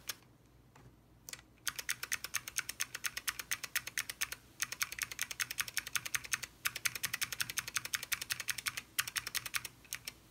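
Keystrokes on an Alps-switch keyboard fitted with a doubleshot ABS keycap: rapid runs of sharp plastic clacks with short pauses between runs. The keycap's sound is being compared with other caps.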